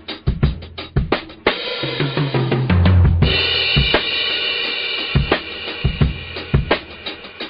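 Drum-led music with a kick-and-snare beat. From about a second and a half in, held bass notes and then a bright sustained chord swell over the beat for a few seconds before the plain drum pattern returns.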